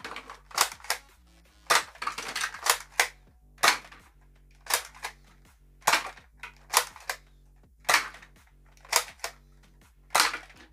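X-Shot foam dart blaster fired over and over, a sharp snap every half second to second, with darts striking the plastic target cans and knocking them over. Background music plays underneath.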